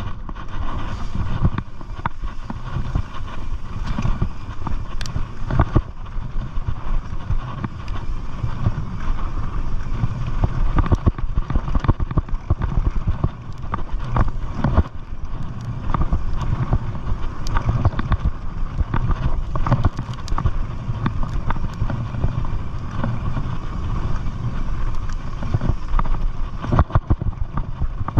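Mountain bike rolling down a dirt singletrack: tyres rumbling over the ground, with frequent short clicks and rattles from the bike, and wind noise on the microphone.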